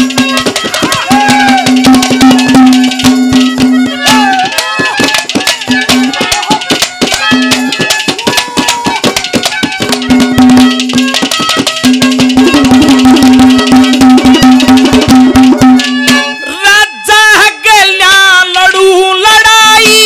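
Instrumental interlude of Haryanvi ragni folk music: fast hand-drum beats under a held drone note and a melody line. Near the end a man's voice comes in with a wavering sung line.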